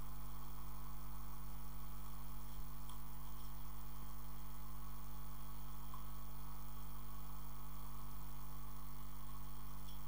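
Steady electrical mains hum with a faint background hiss.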